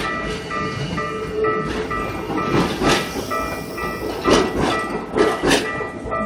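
Japanese level-crossing warning bell ringing on a steady repeat while a Keikyu train runs over the crossing, its wheels clacking over the rail joints in pairs.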